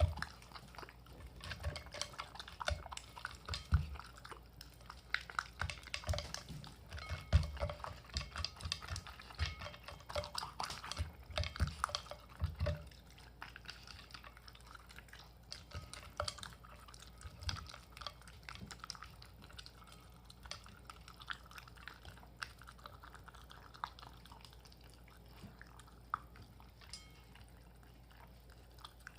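Shiba Inu eating dog food topped with boiled venison mince from a bowl: quick chewing, licking and bowl clicks. They are dense and louder for the first dozen or so seconds, then sparser and softer.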